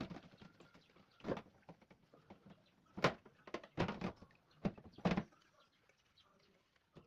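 Dishes and utensils clattering and knocking as they are handled and set down, about eight separate knocks with a cluster in the middle, while the tap is off.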